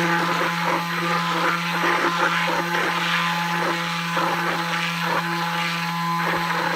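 Hand-held immersion blender running steadily in a tub of egg, lemon and oil, emulsifying it into thickening mayonnaise as more oil goes in: a steady motor hum with a churning, sloshing noise over it.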